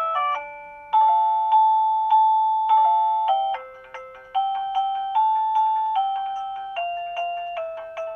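Guudgo GD-MD01 wireless doorbell receiver playing its electronic chime melodies. One tune fades out just at the start, and a new tune begins about a second in, a run of notes that each strike and fade.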